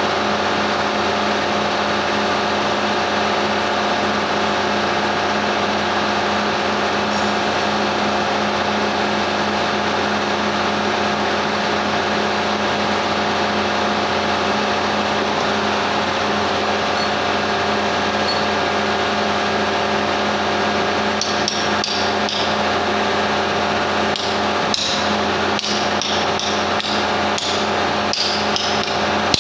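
Hammer strikes on metal, a run of sharp ringing blows starting about two-thirds of the way in, during work on a lorry gearbox. Under them a steady machine hum runs throughout.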